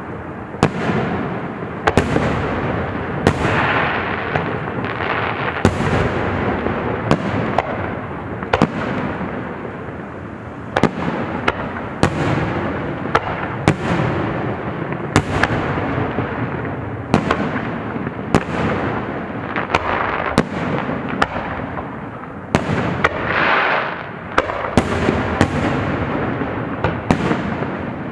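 A fireworks show: a rapid run of shell bursts, sharp bangs every second or so, some close together, over continuous rumbling and crackling.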